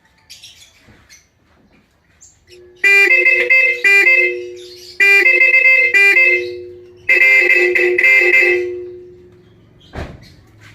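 Bosch high- and low-tone horn pair sounding together in three bursts of quick, broken toots, about two seconds apart. A single sharp knock follows near the end.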